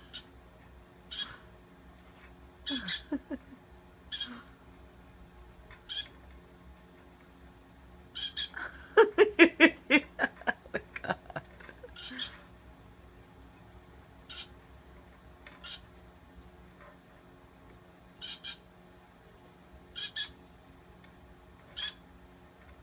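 Pineapple conure, a green-cheeked conure colour variant, giving short high chirps every second or two. About nine seconds in comes a rapid run of about a dozen louder squawking calls that lasts some three seconds.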